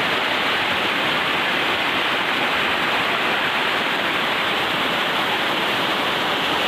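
Water pouring over a dam's concrete overflow steps and rushing down the spillway, heard close up as a steady loud rush.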